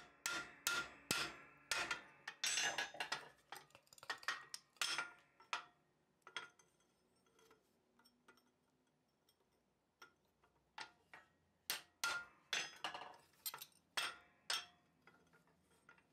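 Hand hammer striking a narrow punch that is being driven into a red-hot steel hammerhead to punch the eye, a stage of forging a small engraving hammer. The sharp blows come about two a second, pause for a few seconds midway, then resume in a second run.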